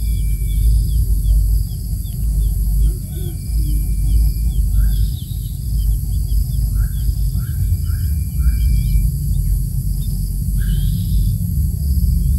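Quail chicks peeping in short, high, rapid cheeps, with a few lower rising call notes in the middle, over a steady high insect drone and a loud low rumble.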